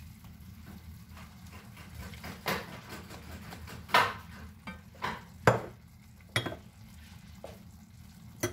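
Plastic spatula stirring sliced mushrooms in a stainless steel frying pan while liquid from a glass bowl is poured in, with the pan sizzling underneath. Several sharp knocks of the spatula and glass bowl against the pan, the loudest about four and five and a half seconds in.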